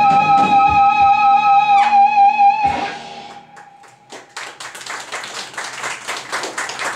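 A live band's final sustained note with vibrato, a falling slide near two seconds, then a cut-off about two and a half seconds in. After a second of near quiet the audience starts clapping and the applause builds.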